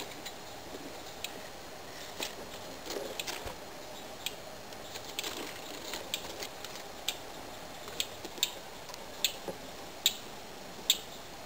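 A series of short, sharp clicks, roughly one every half second to a second, growing louder in the second half, over a faint steady hiss.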